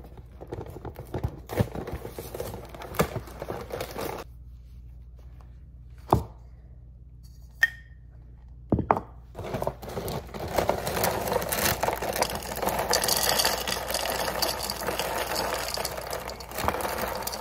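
A cardboard cereal box and its plastic liner bag being torn open and crinkled, with a few single knocks. About ten seconds in, dry Cap'n Crunch's Crunch Berries cereal starts pouring from the bag into a bowl as a long, dense rattling hiss.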